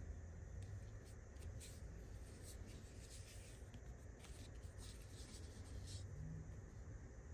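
Faint scratching and rubbing as fingers handle a wearable neck speaker, a run of short scratchy strokes between about one and six seconds in, over a low steady hum.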